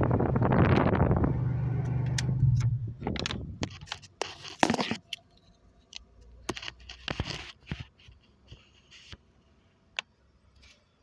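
A vehicle engine running, which shuts off about two and a half seconds in. Scattered clicks, rattles and handling noises follow.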